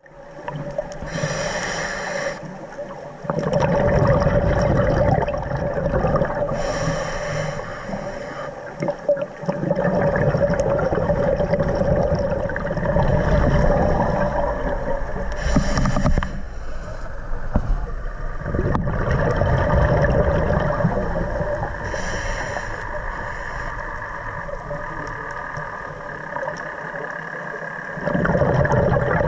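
Scuba diver breathing underwater through a regulator: four short hissing inhalations, each followed by a long, louder rush and gurgle of exhaled bubbles.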